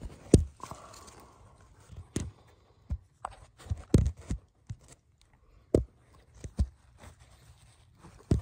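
Irregular sharp wooden knocks and scrapes as split firewood pieces are handled and laid together on rock: about ten separate clunks, several bunched together in the middle.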